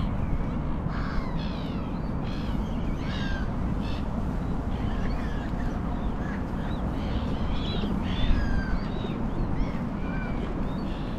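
A flock of birds calling: many short, overlapping calls that sweep down in pitch, over a steady low rumble.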